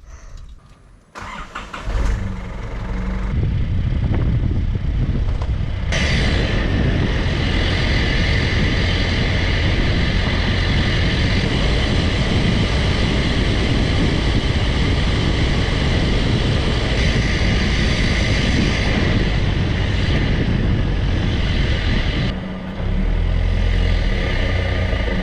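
A car running and driving, with steady engine and road noise that comes up about two seconds in and holds, dipping briefly near the end.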